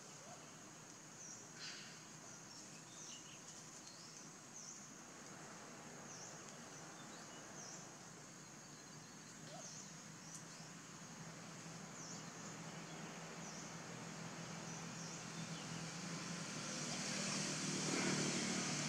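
Forest background: a steady high-pitched drone with short high chirps repeating every second or two. A low rumble builds and grows louder near the end.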